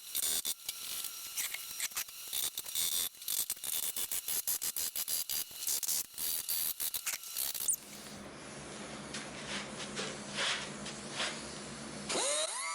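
Hand ratchet wrench clicking in quick, irregular bursts as tailgate hardware is worked loose, for about eight seconds. Then a low steady hum, and near the end a rising sweep as electronic music begins.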